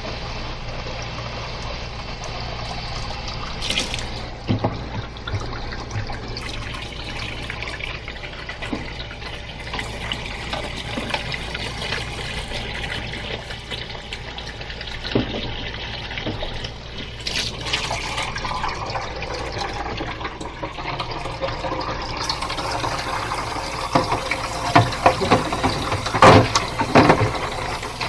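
Tap water running steadily, filling a pet water fountain's plastic reservoir bottle and bowl. A few short knocks, more of them near the end.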